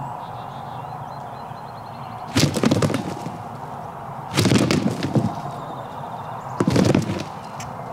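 Wild turkey tom gobbling three times close by, each gobble a loud, rapid rattling call about a second long.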